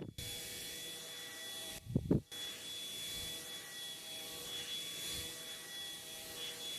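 Small battery-powered portable cooling fan running: a steady rush of air with a thin high whine over it. Two brief loud thumps come about two seconds in.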